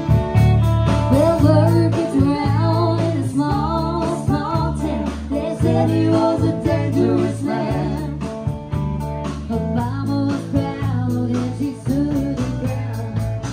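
Live band music: a woman singing into a microphone over guitar and drums.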